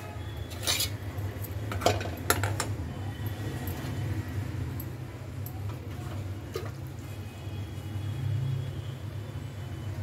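Steel pots, lids and utensils clinking and knocking as they are handled, with a few sharp clanks in the first few seconds and a couple more later, over a steady low hum.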